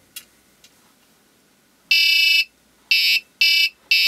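An Arduino-driven buzzer plays the alarm clock's first wake-up melody: after a near-silent start, four buzzy electronic notes of uneven length begin about halfway through, the last still sounding at the end. It is the first alarm sequence, set off by light on the photoresistor, and it repeats until the photocell is covered.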